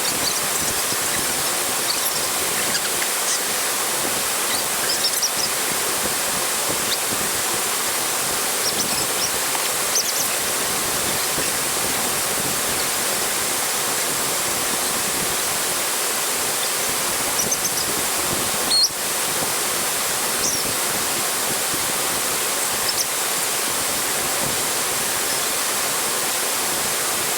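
Waterfall: the steady rush of falling water, with a few faint high chirps scattered over it and one brief knock about two-thirds of the way through.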